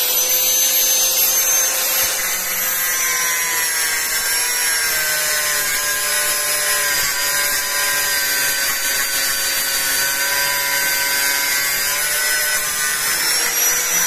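Electric angle grinder with an abrasive disc grinding the steel rivets of a motorcycle clutch housing: a steady high whine over the rasp of metal being ground. The pitch sags a little under load and climbs again near the end.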